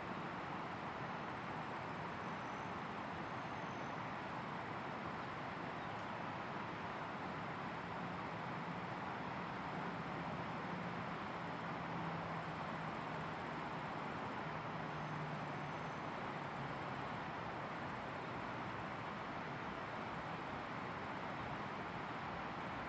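Steady outdoor background hiss with no distinct events, a thin high tone running through it, and a faint low hum that swells briefly about eight to sixteen seconds in.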